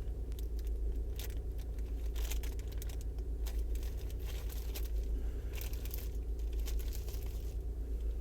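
Vauxhall Zafira 1.7 CDTI diesel engine idling with a steady low, evenly pulsing rumble. Light crinkling and clicks of the replacement suction control valve and its seals being handled run over it.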